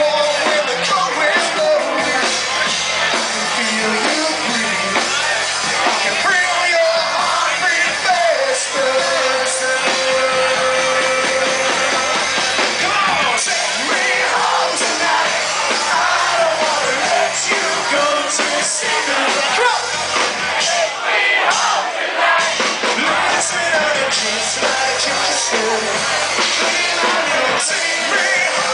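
Live rock band playing loud: a male singer's vocals over electric guitar, bass guitar and drums. The singer holds one long note about nine seconds in.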